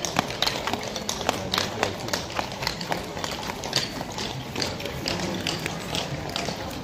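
Hooves of several horses clip-clopping on a paved street, a quick, uneven clatter of knocks, with people's voices behind.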